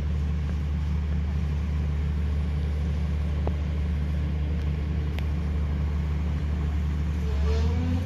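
Truck engine running steadily to power a truck-mounted crane's hydraulics, a low even hum. Near the end it works harder, briefly louder, with a rising whine.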